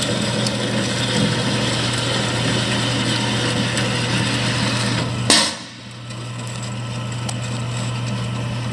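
JET HBS-10HD horizontal metal-cutting bandsaw running with a steady hum while its blade cuts heavily through metal stock, with a gritty cutting noise over the motor. About five seconds in there is a single sharp clank. After it the cutting noise drops away and the saw keeps running more quietly, as the blade breaks through the stock at the end of the cut.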